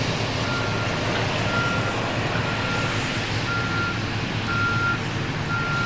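Dump truck's reversing alarm beeping about once a second, six even beeps, over the steady rumble of its diesel engine as it backs up.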